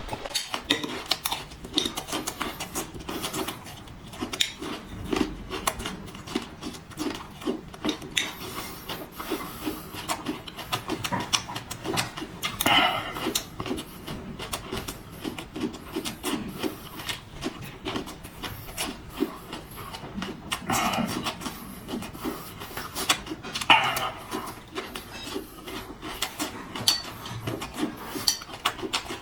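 A person eating close to the microphone: irregular chewing and mouth clicks throughout, with a few louder bursts of slurping and breath.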